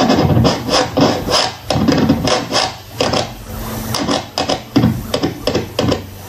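Scratching a track by hand through a timecode vinyl record on a turntable, running Traktor in DVS mode: the house track is dragged back and forth in repeated short rasping strokes, a few a second.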